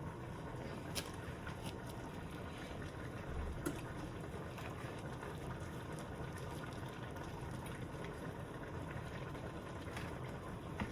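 Steady low hiss of kitchen background noise, with a few light clicks and taps of hands working butter into puff pastry squares.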